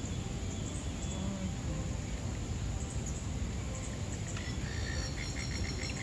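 Steady low outdoor rumble, and from about four seconds in a quick run of short, evenly repeated high chirps.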